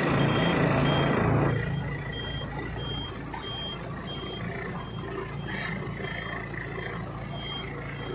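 Truck's diesel engine idling with a steady low hum while an electronic warning beeper in the cab sounds short, high beeps about one and a half times a second, the low-air-pressure alarm going while the air brakes build pressure. A loud rush of noise fills the first second and a half.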